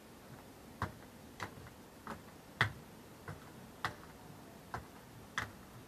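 Four-wheeled quad roller skates knocking on a hard floor as the skater steps backward: about eight sharp clacks, a little under two a second.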